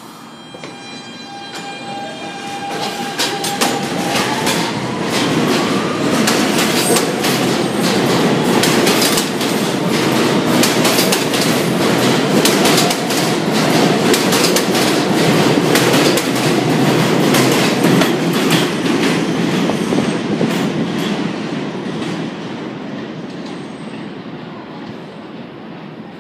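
An R160 New York City subway train pulling out of the station. A steady electric whine from its propulsion rises in pitch as it accelerates. Then a fast clickety-clack of wheels over rail joints on the elevated steel structure grows loud and fades away as the train leaves.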